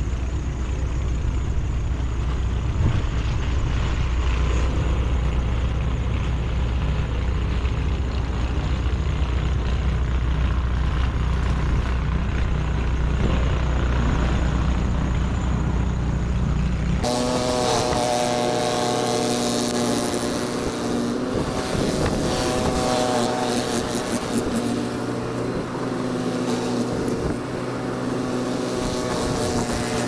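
Plow truck's engine running while pushing snow, a steady low rumble. A little over halfway through the sound changes abruptly to a higher engine drone with a clear pitch.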